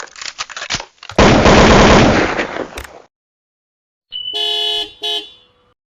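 Comedy sound effects played one after another: a loud rattling noise burst lasting about two seconds, then, after a pause, a steady horn-like honk sounded twice, a long one and a short one.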